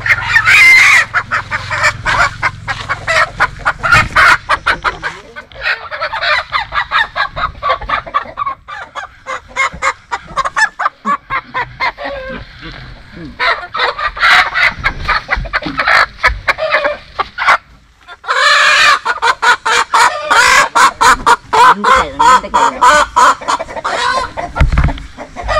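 Domestic hens cackling and squawking in alarm in repeated loud bouts while they are caught and handed out by hand, the flock upset by a cobra hiding in the coop.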